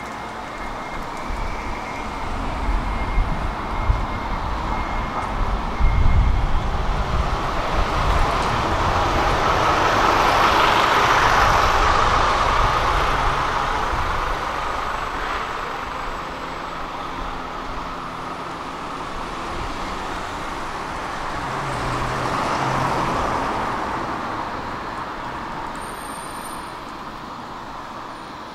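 A city bus approaches and drives past, its engine rumble building and its tyre noise swelling to a peak about ten seconds in, then fading. A second, smaller vehicle pass swells and fades near the end.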